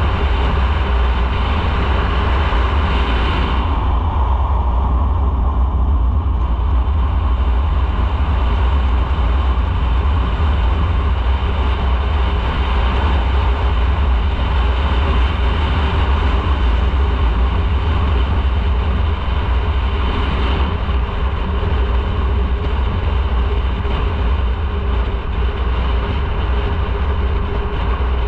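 Motorcycle under way: a steady engine drone mixed with heavy wind rumble on the on-board microphone. The higher hiss thins out for a few seconds about four seconds in.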